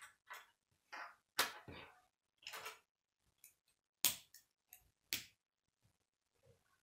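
Plastic K'nex rod and connector pieces being handled and snapped together over a wooden table: irregular sharp clicks and short plastic rattles, about a dozen in all, the loudest about a second and a half in and about four seconds in.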